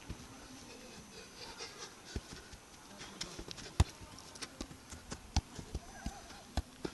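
A leather football being juggled with the feet and knees: a string of irregular dull thuds from foot and knee touches on the ball, mixed with shoes scuffing on dry grass. The thuds come mostly from about two seconds in, and the loudest is about four seconds in.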